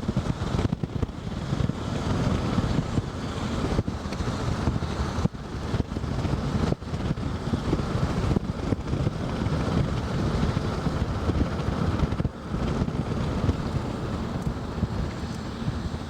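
Wind buffeting the microphone over the low rumble of a car driving along, a rough, fluctuating noise with a few brief dips.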